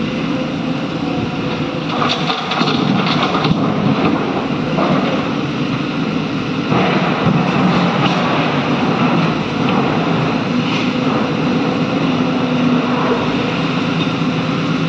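Heavy diesel engines running steadily while an excavator loads a truck. Bouts of clattering come about two seconds in and again around seven seconds in, typical of rock or earth being dumped into the truck body.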